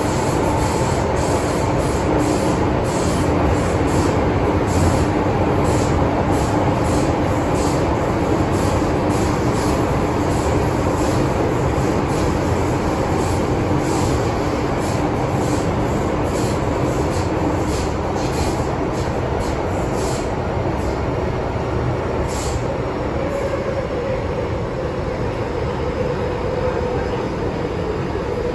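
Hong Kong MTR M-train electric multiple unit running, heard on board: a loud, steady rumble with a droning whine and a high wheel squeal, and frequent short high ticks. A tone glides upward near the end as the noise eases slightly.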